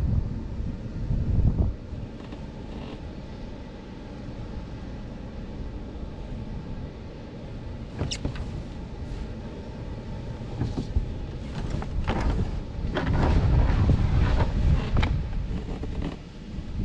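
Wind buffeting the microphone in low rumbling gusts, strongest at the start and again about three-quarters of the way through, with a few sharp clicks and knocks in between.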